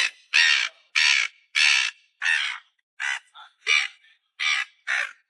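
A seagull trapped in a car's front grille giving a run of about ten harsh, squawking calls, roughly one every two-thirds of a second.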